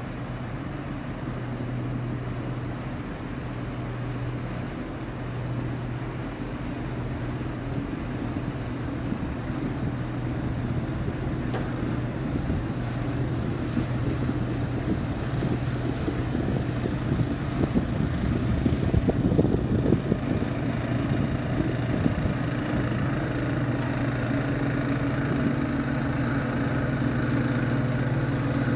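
Steady low drone of a passing cargo ship's engine. In the last few seconds a pilot boat's engine running close by joins in, adding a higher, slightly louder engine tone.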